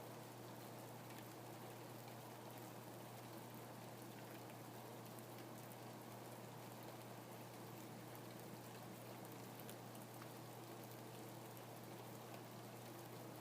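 Steady rain falling, an even hiss with scattered sharp drop ticks, over a constant low hum.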